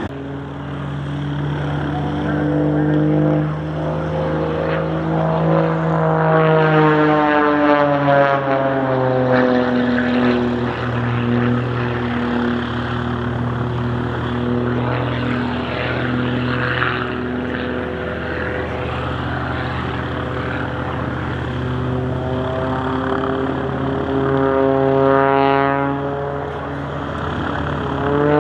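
Propeller-driven aircraft engine flying past: the engine note drops in pitch as it goes by about seven seconds in, holds steady, then climbs again as it comes back around near the end.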